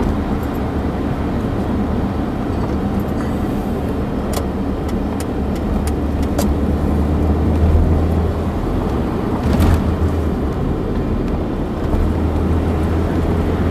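Car heard from inside the cabin while driving: a steady low engine and road rumble, with a few short clicks midway and a brief swell of noise about two-thirds of the way through.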